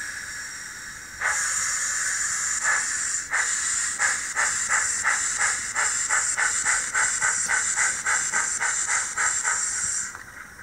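HO scale model steam locomotive's sound decoder playing a steam hiss and chuffing as the engine pulls away. The chuffs come slowly at first, then quicken to about three a second, and the sound drops away near the end.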